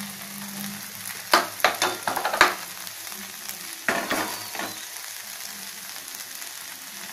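Okra palya sizzling in a pan over medium flame while it is stirred, with a cluster of utensil scrapes and knocks against the pan about a second in and another about four seconds in.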